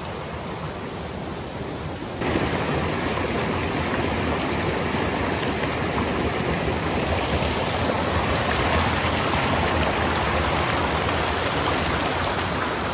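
A little stream running, a steady rush of water that gets louder about two seconds in.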